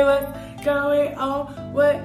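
Intro song: music with guitar, in short repeated notes.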